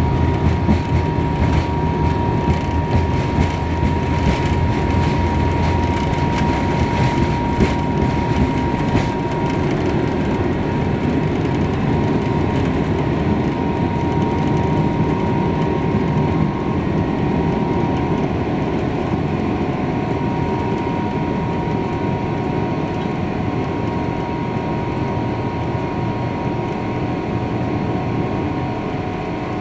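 Jet airliner cabin during takeoff: the engines run at takeoff power, a steady roar with a thin whine on top. For the first several seconds the wheels rumble and thump over the runway. About ten seconds in the thumping stops as the plane lifts off, leaving a smoother engine roar for the climb.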